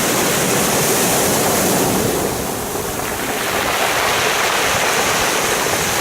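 Sea waves washing over a pebble beach, a steady hiss of water running through the stones. The wash eases about two seconds in and swells again with the next wave.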